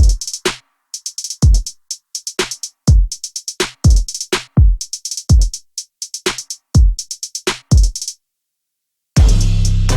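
Electronic music with a drum-machine beat of deep, falling-pitch kick drums and crisp hi-hat ticks. It breaks off for about a second near the end, then returns fuller, with held bass notes under the beat.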